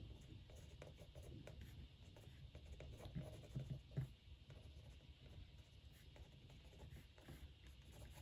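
Fine-tip ink pen scribbling short, light marks on watercolor paper: faint scratching strokes, a few of them a little louder around the middle.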